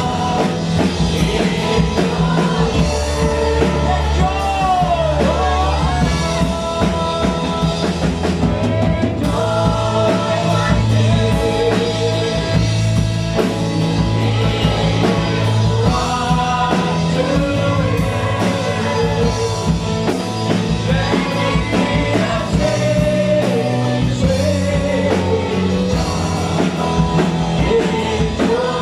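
Band music with a singing voice over a full, steady backing of sustained bass, drums and guitar in a rock style.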